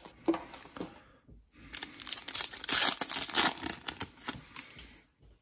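Foil trading-card pack wrapper being torn open and crinkled: a crackling rip starting a little under two seconds in and lasting about three seconds.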